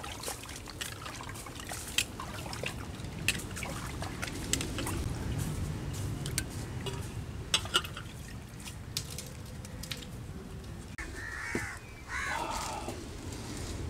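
Wet clicks and sloshing of cut fish pieces being handled in water in a steel bowl, with scattered short sharp clicks. A crow caws near the end.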